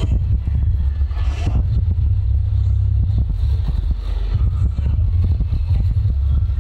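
A steady, loud low rumble with faint clatter over it.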